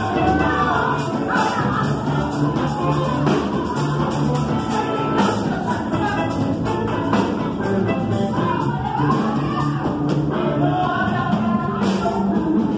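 Live band music: a woman sings through a microphone and PA, backed by a drum kit keeping a steady beat.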